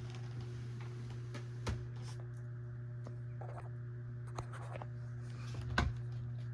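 Dell Inspiron 1521 laptop cooling fan running with a steady low hum, with a few sharp clicks and knocks over it, the loudest near the end.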